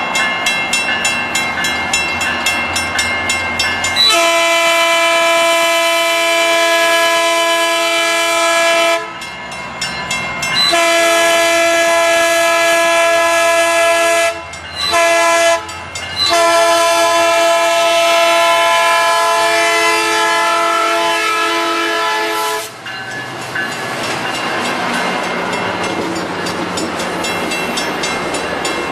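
Metrolink F59PH diesel locomotive's air horn sounding a multi-tone chord at a grade crossing: two long blasts, two short ones, then a long blast held about six seconds, with a crossing bell ringing rapidly before the horn starts. After the horn stops, near the end, the coaches rumble and clack past.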